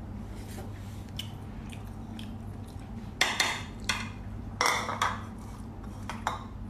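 Wooden spoon stirring a pot of lentils, scraping and knocking against it: a handful of short scrapes between about three and five seconds in and one more near the end, over a steady low hum.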